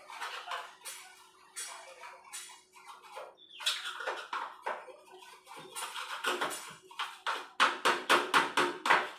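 Scrubbing strokes on a gas stove burner part as it is cleaned. They are irregular at first, then become a fast, louder run of about four strokes a second near the end.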